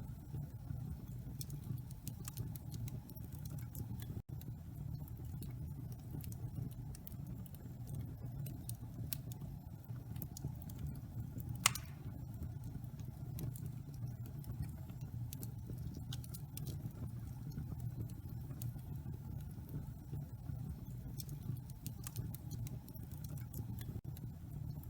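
Fire crackling in a fireplace: a steady low rumble of burning with small scattered crackles and one louder pop about twelve seconds in.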